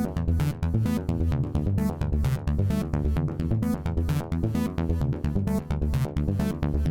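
Electronic music with a steady, fast beat, sharp percussion hits over a stepping synth bass line and repeating synth notes.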